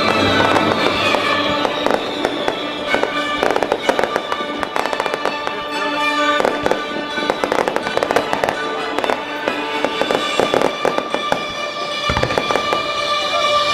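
Fireworks crackling and popping in dense clusters over loud orchestral show music with long held notes.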